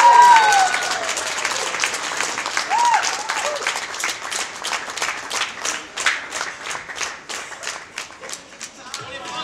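Crowd applauding: a voice calls out at the very start, then the clapping falls into rhythmic clapping in unison, about four claps a second, from about four seconds in, easing off near the end.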